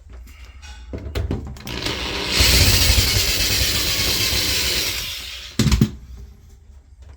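Dryer cabinet being shifted across the floor: a loud scraping noise for about two and a half seconds, ending in a thump as it is set down.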